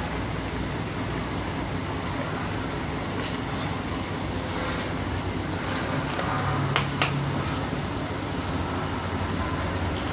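Chicken curry broth with oyster mushrooms simmering in a steel pot on a stove, giving a steady hiss. Two sharp clicks come close together about seven seconds in.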